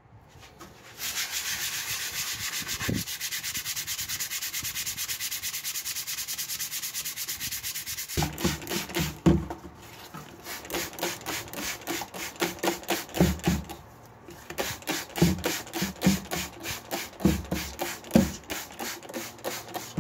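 Sandpaper rubbed by hand back and forth over the rusty steel blade of a masonry trowel. The strokes are fast and even at first; about eight seconds in they turn slower and more uneven, with heavier knocks on the blade and a brief pause.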